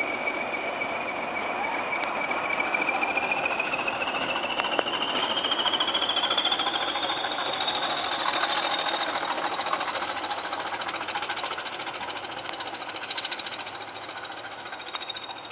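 Class 20 diesel locomotive's English Electric eight-cylinder turbocharged engine working as the loco pulls away, its high turbocharger whistle rising in pitch over the first several seconds as power comes on, then holding steady above a rhythmic engine clatter. The sound eases off near the end as the locomotive draws away.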